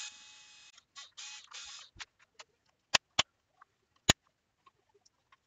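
Hands working the circuit board of a Mercedes ME9.7 engine control unit out of its housing: a short hiss in fading bursts in the first two seconds, then four sharp clicks and a few light ticks as the board and case are handled.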